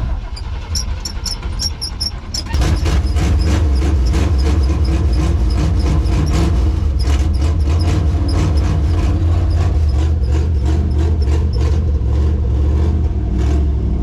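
1954 Chevy 3100 pickup's inline-six engine cranked over by the starter for about two and a half seconds, then catching and running steadily, now that the battery terminals and cables have been redone.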